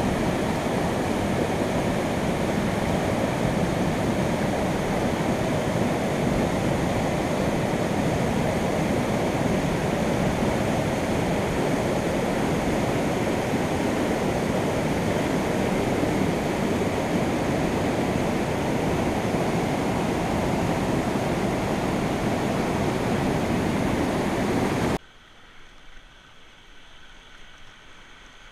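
Whitewater river rapid rushing steadily. About 25 s in the sound drops suddenly to much quieter moving water around a paddled kayak.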